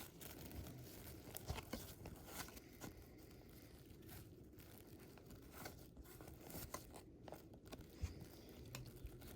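Faint rustling and crinkling of trading cards and their pack wrappers being handled, with a few soft clicks and taps.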